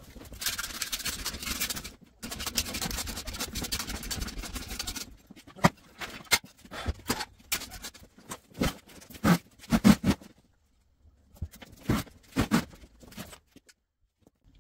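Come-along hand winch ratcheting as it hoists a snowmobile over onto its side: a dense run of rapid clicks for about five seconds, then scattered separate clacks and knocks.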